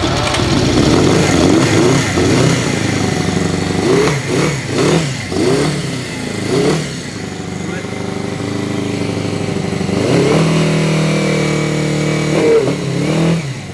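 Benelli 250 Quattro's small four-cylinder engine, just started, running and blipped up and down a few times about four to seven seconds in, then holding a steadier, faster idle. It is not firing on all four cylinders: one plug isn't firing, so it runs on three and gives what sounds like a three-cylinder note.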